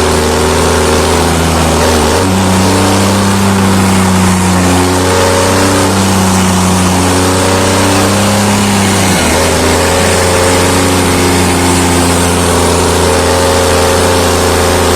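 New Holland T7 tractor's diesel engine running loud and steady, its pitch stepping up about two seconds in and dropping back about nine seconds in.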